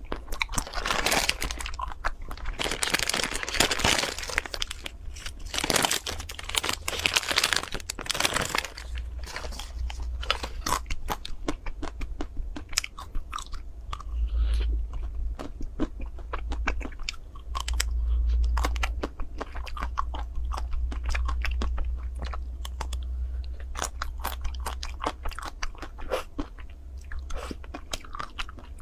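Close-up biting and chewing of a chocolate-shelled ice cream bar: loud crackling crunches of the hard chocolate coating for the first several seconds, then softer, steady chewing with small clicks.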